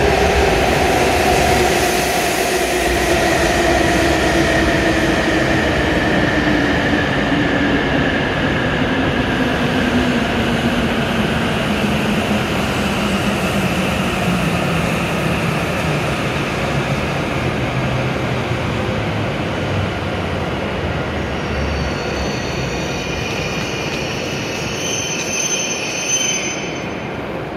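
A W7 series Shinkansen train pulls in and slows to a stop, with the rushing noise of the cars passing close by. Its motor whine falls steadily in pitch as it slows. About 22 seconds in, a high squeal sets in as it comes to a halt, with a brief knock near the end.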